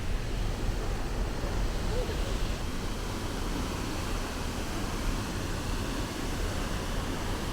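Steady rushing roar of a large waterfall, falling water hissing without a break.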